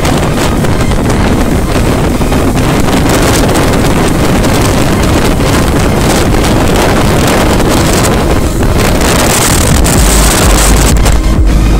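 Wind rushing over the microphone of a moving motorcycle, a loud steady roar with the bike's road noise underneath.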